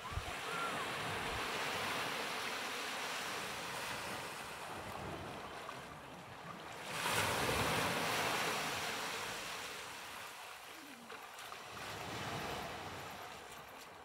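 Ocean surf breaking and washing up the beach. It swells loudest about halfway through, then ebbs before a smaller surge near the end.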